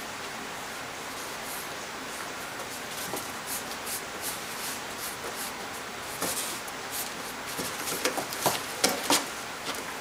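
A Ragdoll cat's paws scratching and scraping at the inside of a cardboard box, over a steady hiss. The scratches come in short strokes, growing louder and closer together in the second half.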